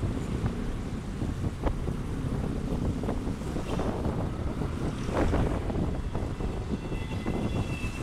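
Wind rushing over the microphone of a moving motorcycle, with a low rumble of engine and road noise underneath.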